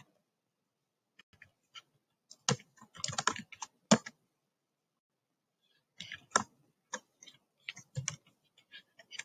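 Typing on a computer keyboard: two bursts of quick keystrokes with a pause of about two seconds between them.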